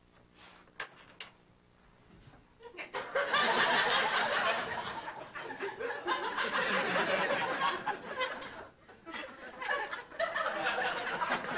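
Studio audience laughter, swelling up about three seconds in and tapering off, then rising again near the end.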